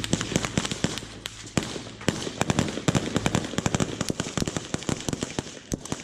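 Small-arms gunfire in a firefight: rapid, irregular rifle shots, single and in quick bursts, densest in the middle.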